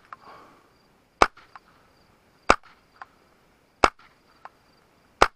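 Four suppressed 9mm shots from a pistol-calibre carbine wearing an AB Suppressors F4L can, supersonic 115-grain ammunition, heard from beside the ejection port. The shots come evenly, about one every 1.3 seconds, each followed by a much fainter click.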